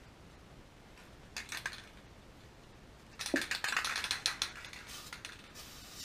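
Aerosol spray-paint can being shaken, its mixing ball rattling: a short burst of clicks about a second and a half in, then a longer, denser rattle from about three seconds in to past five seconds.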